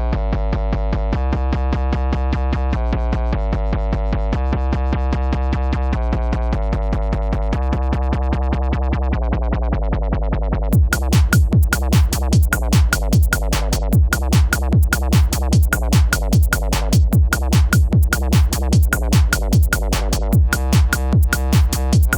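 Electronic music played on an Ableton Push 3 with stock Ableton sounds: held synthesizer chords over a steady bass, growing brighter in the highs. About halfway through a drum-machine beat comes in with a sharp hit roughly every half second.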